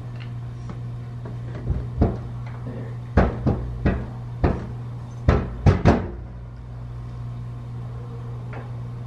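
Sharp metal knocks and clunks as a tubular subframe on a jack is worked onto its mounting bolts under a car, about nine of them in quick, uneven succession over a few seconds, over a steady low hum.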